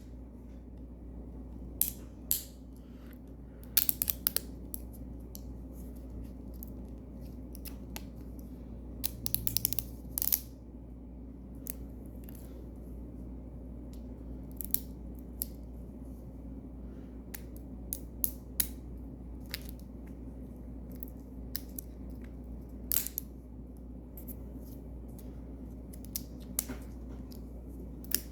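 Scattered snips and crinkles of plastic packaging being cut and worked open with scissors, coming in irregular short clusters over a steady low hum.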